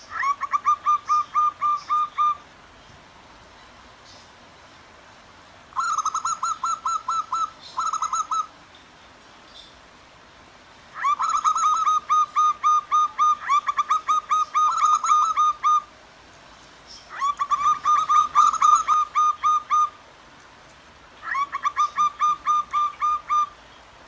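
Zebra doves (perkutut) singing: five bouts of rapid, staccato cooing notes, about six a second, each bout lasting two to five seconds. A faint steady murmur of flowing stream water runs underneath.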